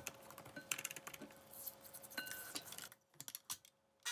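A stand mixer that has just been switched off, followed by scattered light clicks and metal taps around its stainless-steel bowl and beater, with a short near-silent gap near the end.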